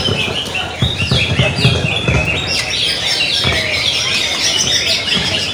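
Many caged songbirds singing at once: a dense, continuous chorus of overlapping chirps and whistles. A few dull low thumps sound in the first half.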